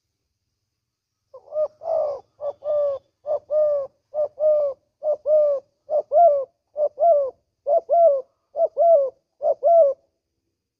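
Spotted dove cooing: a run of about ten quick two-note coos, each a short note followed by a longer, slightly bending one, repeating a little under once a second. The calls start a little over a second in and stop near the end.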